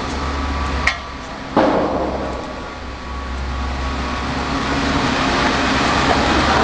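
Hydraulic tyre baler running with a steady low hum from its pump motor, and two sharp metal knocks about a second and a second and a half in.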